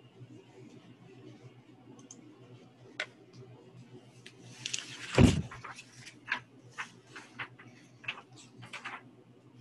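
Paper being handled on a table as one sheet is swapped for a fresh one. A rustle builds to a single thump about five seconds in, then a string of short crinkles and taps follows.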